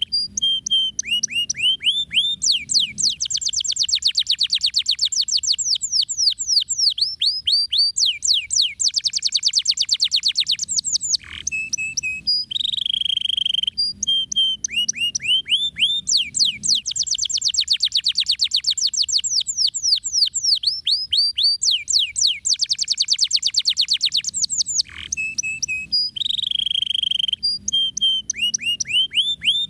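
Domestic canary singing nonstop: long, fast rolls of rapidly repeated downward-sweeping notes, broken by short held whistles. The same song phrase comes around twice.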